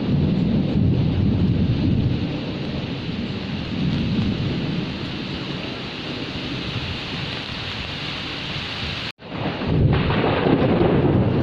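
Steady heavy rain with a deep rolling rumble of thunder that swells and eases. The sound cuts out for an instant about nine seconds in, then resumes.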